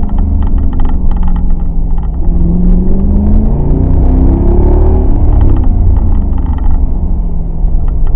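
Mercedes CLK 63 AMG's 6.2-litre V8 under hard acceleration, its note climbing in pitch from about two seconds in and levelling off around five seconds. It is running cleanly, with no misfire showing at this moment.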